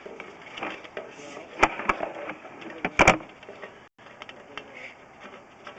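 Sewer inspection camera and its push cable being worked back and forth in a 3-inch cleanout: scattered rattling and clicking, with two sharper knocks about a second and a half in and about three seconds in.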